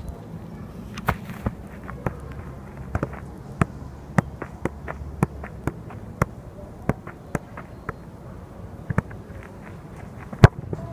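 A football being juggled: a steady series of short thuds, about two a second, as the ball strikes the player's feet and legs, with one louder strike near the end.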